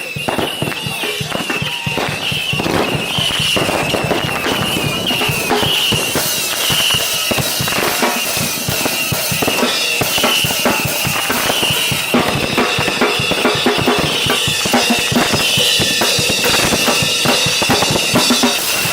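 Firework barrage: a dense, continuous run of rapid bangs and crackles under a steady, wavering high whistle.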